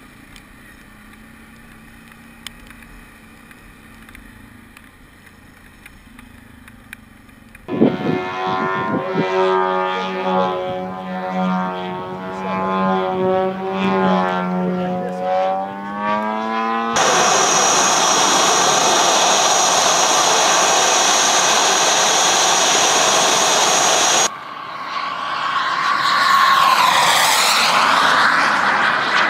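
Radio-controlled model airplane engines. After a quieter first several seconds with a faint steady hum, a propeller plane's engine note bends up and down as it flies aerobatics. This is followed by several seconds of loud, steady rushing with a high whine, and then a plane flying past, its pitch sweeping near the end.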